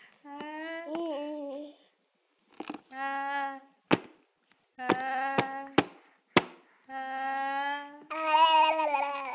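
A baby's voice held in long humming 'aah' notes, five in a row, each about a second or so, while he is played like an instrument. A few sharp pats or taps fall between the notes around the middle.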